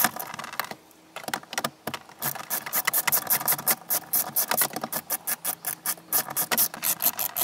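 An 8 mm wrench ratcheting, a rapid run of even clicks that starts about two seconds in, as bolts inside a car's overhead sunglass holder are undone.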